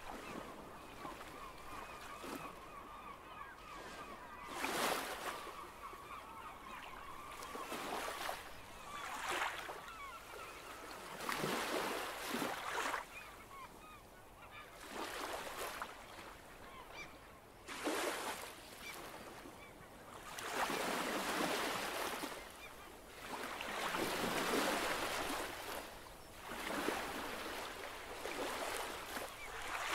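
Sea water washing against a rocky breakwater in irregular surges of hiss, each lasting from about half a second to two seconds. A faint wavering high tone sounds over the first ten seconds or so, then fades.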